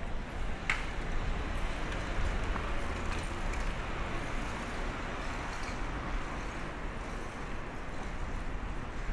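Busy city street ambience: a steady wash of traffic noise with a low rumble, and a single sharp click under a second in.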